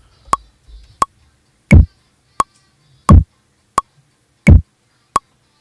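Roland SP-404 MK2 sampler looping a kick drum pattern in its TR-REC step sequencer. A kick drum sample hits three times, about 1.4 seconds apart, and a sharp metronome-like click falls on every beat in between, about 0.7 seconds apart.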